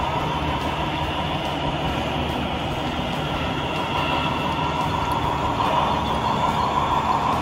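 HO-scale model train running on a layout: a steady rumble with a high hum that grows a little louder near the end.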